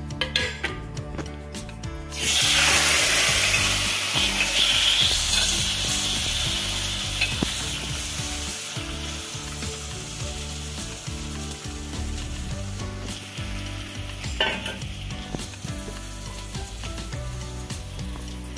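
Small prawns dropped into hot mustard oil in a kadai, setting off a sudden loud sizzle about two seconds in. They keep frying with a steady sizzle that slowly dies down as they are stirred.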